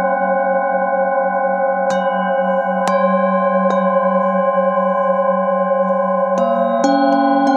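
A metal singing bowl held on the palm is struck with a mallet about five times. Its tones ring on throughout with a slow wavering shimmer, and each strike adds fresh ringing over the sound already there.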